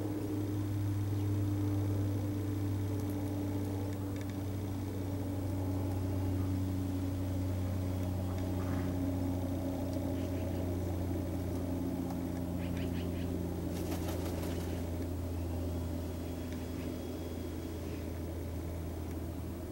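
A steady low motor hum with a fainter tone that slowly falls in pitch. About two-thirds of the way through there is a brief cluster of faint clicks.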